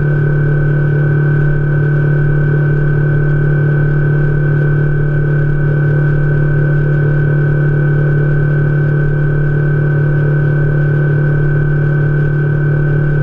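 Outboard motor of a Lund fishing boat running steadily at cruising speed across the lake, a loud, unchanging drone.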